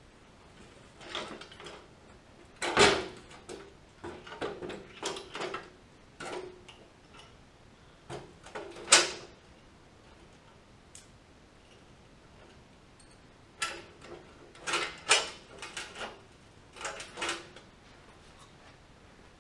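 Hand tools and steel parts clinking and clanking as they are handled and fitted, in short bursts of knocks separated by quiet pauses of a few seconds. The two loudest knocks come about three and nine seconds in.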